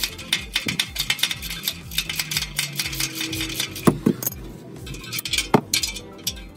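Wrench clicking and clinking on the spring-loaded exhaust flange bolts as they are worked loose, a quick irregular run of small metal clicks with a few louder knocks.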